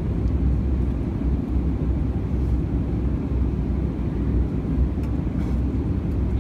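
Steady low rumble of an Airbus A320 airliner cabin in flight: engine and airflow noise heard from a passenger seat.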